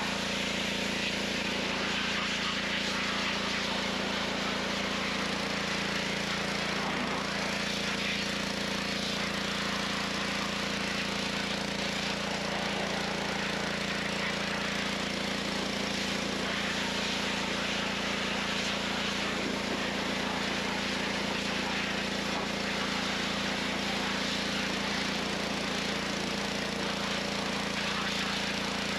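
Pressure washer running steadily, its motor humming under the hiss of the water jet as it rinses foaming degreaser off an engine bay.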